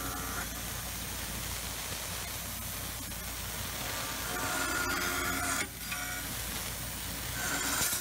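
Tormach PCNC 770 CNC mill cutting steel plate at high feed with a four-flute carbide end mill: a steady noisy cut with a pitched tone from the cutter. The tone and level swell about four and a half seconds in, dip sharply just before six seconds, then swell again near the end.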